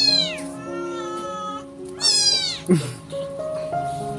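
A kitten meowing loudly twice, about two seconds apart, each call falling in pitch, over background music with sustained notes.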